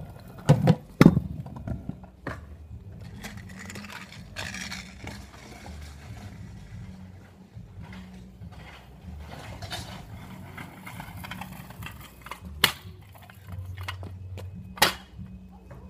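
Kick scooters ridden over a small ramp on a tarmac road: sharp clacks of the scooter landing and striking the ground, two loud ones about a second in and two more near the end, with wheels rolling on the tarmac in between.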